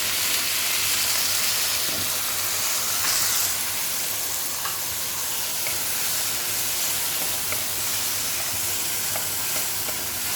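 Water just added to a hot wok of frying spice powders, sizzling and hissing steadily, with a few faint crackles.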